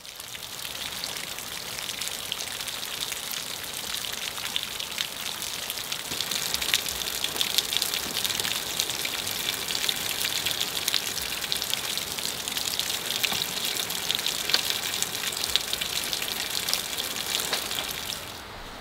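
Falling water pattering steadily, a dense hiss of drops that swells a few seconds in and fades away near the end.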